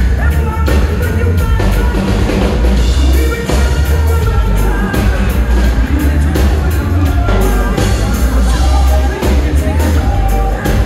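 Reggae band playing live through a large stage sound system: a heavy bass line and drum kit keeping a steady beat, with congas and a sung lead vocal.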